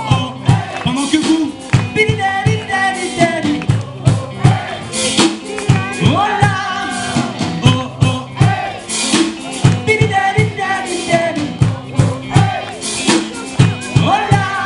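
Live rock band playing: a drum kit keeping a steady beat under electric guitar and bass, with a singer's voice over the music.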